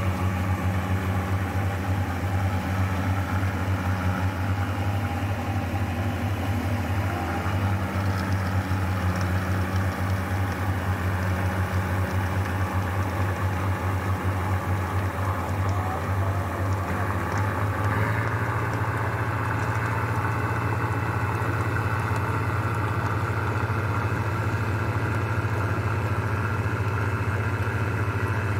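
A tracked farm tractor's diesel engine runs steadily under load as it ploughs a flooded rice paddy. About eighteen seconds in, the engine note changes and becomes fuller and steadier.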